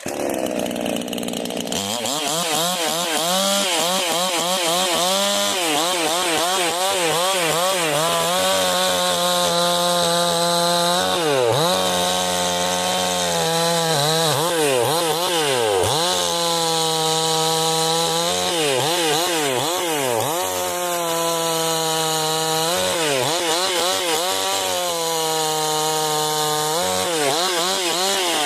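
Generic 20-inch gas chainsaw running, its engine speed rising and falling over and over as the throttle is worked, held at high revs for a few seconds at a time.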